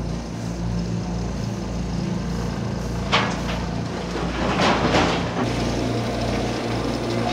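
Heavy diesel construction machinery running steadily with a low, even throb. There is a sharp clank about three seconds in and a louder, noisy rush of sound for about a second around the five-second mark.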